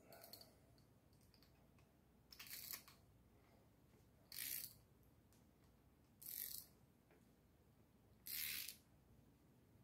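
Socket ratchet clicking in short bursts, about one every two seconds, as rocker-arm adjusting nuts are snugged down to take the play out of the valvetrain when setting hydraulic-lifter valve lash.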